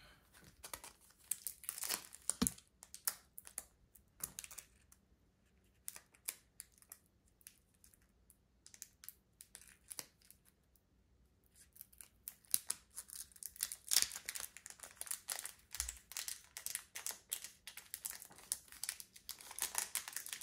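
Foil Pokémon booster pack wrappers crinkling and tearing open as cards are handled, with sparse crackles in the first half and steady, denser crinkling through the second half.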